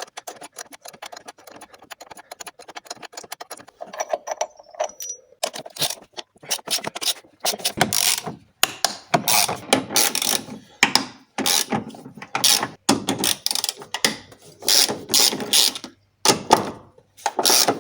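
Hand ratchet wrench clicking as a bolt is undone: a fast, even run of fine clicks for the first few seconds, then repeated short strokes of clicking as the handle is swung back and forth.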